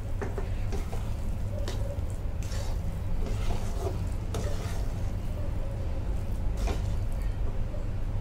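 A metal spatula scraping and stirring thick bottle-gourd halwa in a steel kadai, with short scrapes against the pan every second or so over a steady low hum.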